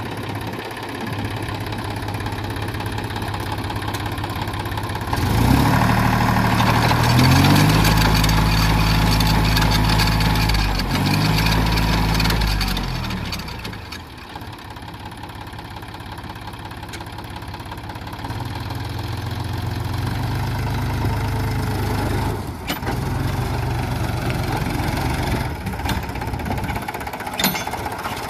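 John Deere tractor's diesel engine running, revved up about five seconds in with the pitch rising and falling a few times. It runs hard for several seconds, drops back to a lower, steadier speed, and picks up again later.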